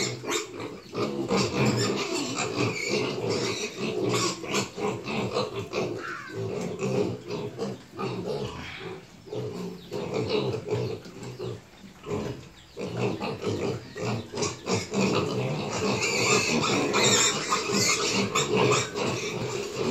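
A pen of weaned piglets grunting and squealing together, the noise rising louder near the end.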